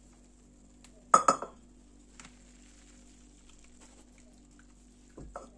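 Kitchenware clinks as a plastic mesh strainer is handled against a ceramic bowl: one sharp, ringing clink about a second in, then a couple of faint knocks near the end, with little else heard.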